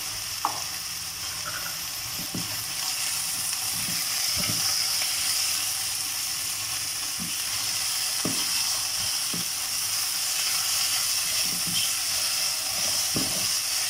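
Onion and tomato masala sizzling in oil in a nonstick frying pan, with a silicone spatula stirring and scraping through it now and then.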